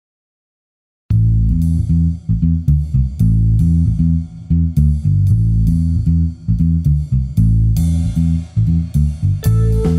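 Silence for about a second, then instrumental theme music starts: a driving bass guitar line with a steady beat and crisp percussion, and a held note joins near the end.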